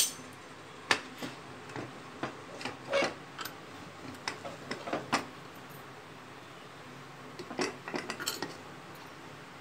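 Aluminium pressure cooker lid being handled and twisted open, giving scattered light metal clinks and knocks, with a quiet stretch in the middle and a small cluster of clinks near the end.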